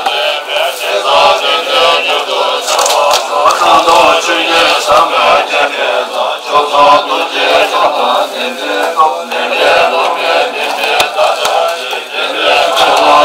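Tibetan Buddhist monks chanting prayers together, several men's voices reciting in unison without a break.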